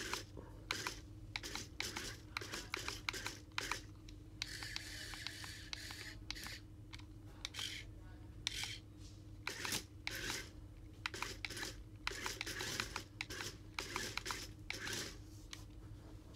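Eight-wheeled remote-control toy robot dog driving and turning on a tile floor: rapid clicking and rattling from its small motors and wheels, with a second or so of steady rasp about four and a half seconds in.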